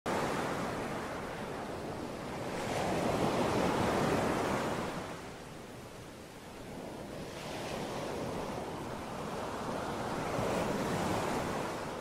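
Surf washing onto a sandy beach, with wind: a steady rush that swells about three seconds in, eases off midway and swells again near the end.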